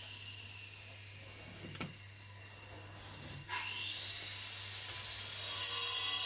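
A high-pitched whine that slowly sinks in pitch, broken by a sharp click about two seconds in. About three and a half seconds in it starts again low, rises quickly to a steady high pitch and grows louder, over a steady low hum.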